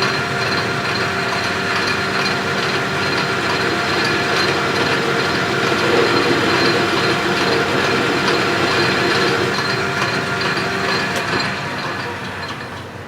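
South Bend 13 metal lathe running steadily with a chamfering tool cutting a bevel on a turned plug: a steady mix of machine whine and cutting noise that dies away near the end.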